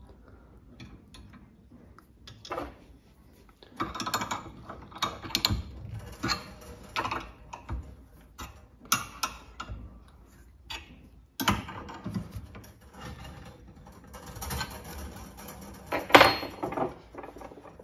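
Irregular metallic clicks and clinks of a brake line flaring tool's steel parts being handled and fitted together, with a few sharper clacks, the loudest near the end.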